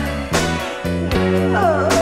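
Instrumental break in a late-1980s Brazilian children's pop song: guitar and bass over a steady beat, with a sliding melody line near the end.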